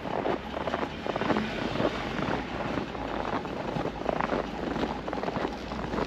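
Footsteps crunching through fresh snow over a steady low rumble.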